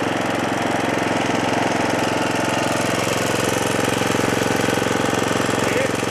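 Snapper 28-inch 12.5 HP Hi-Vac rear-engine riding mower's engine running steadily with an even purr.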